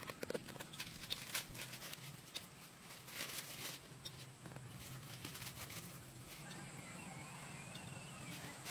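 Soft rustling of leaves and scattered light knocks and clicks from hands picking melons among leafy vines and stepping through the grass, busiest in the first few seconds and quieter later.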